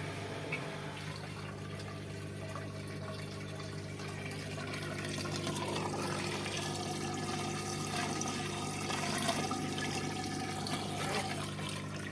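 Xiaomi washing machine's drain pump running: a steady electric hum with water rushing and gurgling through it as the machine pumps out.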